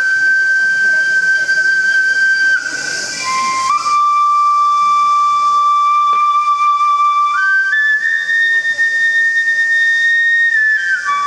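Shinobue (Japanese bamboo flute) playing slow, long held notes that step from one pitch to the next. The melody dips lower about three seconds in, climbs higher in two steps about seven seconds in, and drops back down near the end. No drums are struck.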